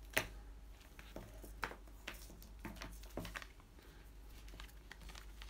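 Oscilloscope probe leads being handled: light clicks and knocks as the probe cables and their plastic fittings are lifted and untangled, the sharpest click a fraction of a second in.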